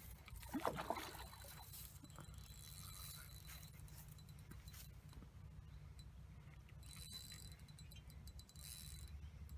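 Faint, rapid ticking of a fishing reel while a hooked fish is being played, over a low steady hum.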